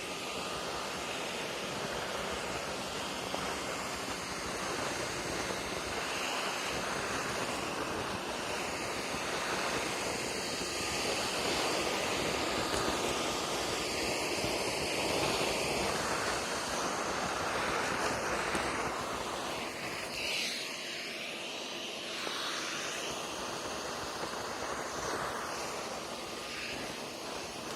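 A 6-gallon shop vac running and sucking up snow: a continuous rush of air with a faint steady whine, the rushing swelling and easing as the nozzle takes in snow.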